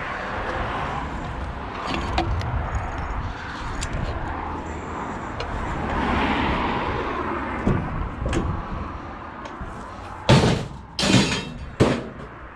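Steady vehicle running and road noise, followed near the end by three loud bangs in quick succession, like a van door slamming or metal being handled.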